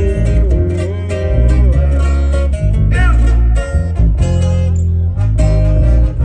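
Live regional Mexican band playing through stage speakers: strummed acoustic guitars over a heavy brass bass line and drums, with little or no singing.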